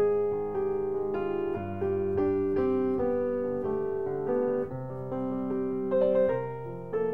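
Background piano music: a melody of held notes moving step by step over sustained bass notes.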